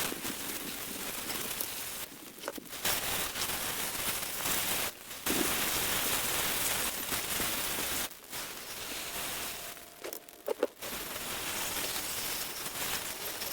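Garden hose spraying water over a chainsaw to rinse off degreaser, a steady hiss of spray that stops briefly several times as the spray is cut and restarted.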